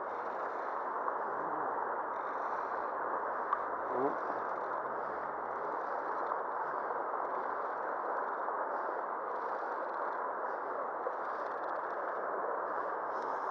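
Steady rushing of flowing river water at an even level, with one brief falling sound about four seconds in.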